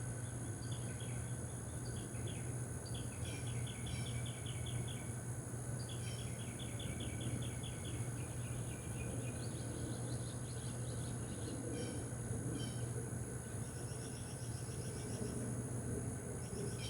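Outdoor insect chorus: a steady high-pitched trilling with repeated bursts of rapid pulsed chirps, over a low steady hum.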